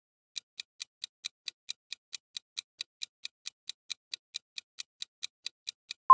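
Countdown-timer sound effect of a clock ticking: quick, even ticks, about four to five a second, starting about half a second in and stopping just before the end.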